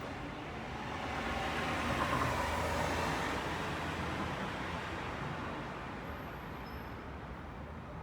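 A road vehicle passing by: a steady rushing noise that swells over about two seconds and then slowly fades away.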